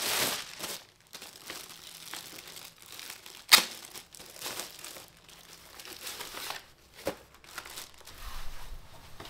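Clear plastic packaging crinkling and rustling as it is pulled off and handled in uneven bursts, with one sharp click about three and a half seconds in.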